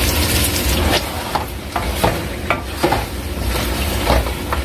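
Chicken pieces frying in oil in an aluminium pot, sizzling steadily. A wooden spoon stirs them, scraping against the pot in repeated strokes, about two or three a second from about a second in.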